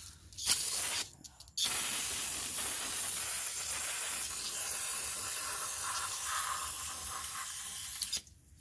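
Aerosol degreaser hissing as it is sprayed through a red extension straw onto a greasy brake caliper to clean it. A short burst comes first, then one long unbroken spray of about six seconds that stops shortly before the end.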